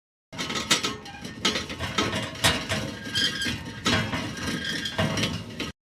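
Vaporpinwheel sound effect: a dense mechanical clatter of gear-like ratcheting and whirring, with sharper clicks about once a second. It starts and cuts off abruptly.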